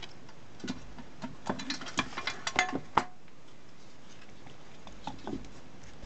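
Light clicks and knocks of a battery charger's circuit board and its wires being handled and set down on a work mat. They come in a quick cluster over the first three seconds, with a couple more near the end.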